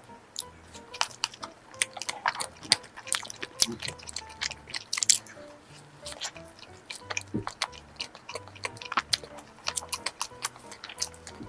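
Close-miked eating of a cream-filled donut: bites, chewing and wet mouth clicks coming irregularly throughout, over soft background music.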